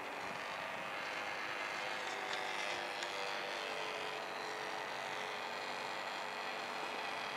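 Radio-controlled model airplane flying overhead, its motor running steadily.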